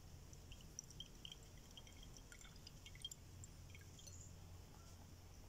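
Faint, scattered drips of orange juice squeezed from a cut orange falling into a glass of butterfly pea water, over near silence.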